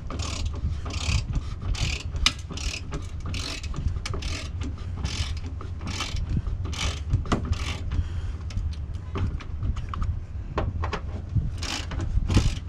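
Half-inch drive ratchet clicking in short bursts about twice a second as its long handle is swung back and forth on a tight 13 mm bolt, with a pause partway through before the clicking resumes. A steady low rumble runs underneath.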